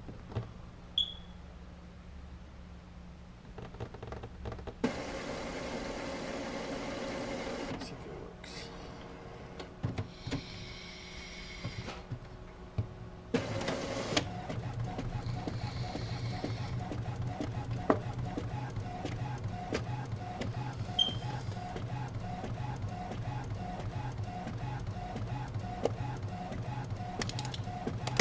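A vape is drawn on and exhaled with a hiss, the exhale about halfway through. Just after, a machine starts a steady rhythm of about two beats a second.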